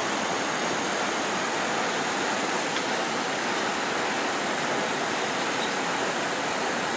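A steady, even rushing hiss of churning water from a pond aerator, with no rhythm and no change in level.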